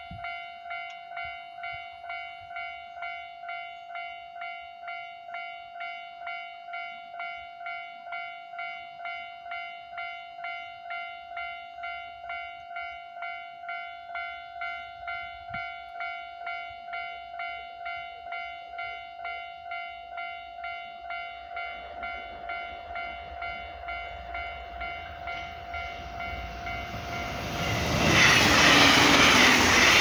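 Japanese level-crossing warning bell ringing its steady repeating electronic 'kan-kan' about one and a half times a second. From about two-thirds of the way in, an approaching electric train's rumble grows, and in the last two seconds the train passes the crossing loudly, drowning out the bell.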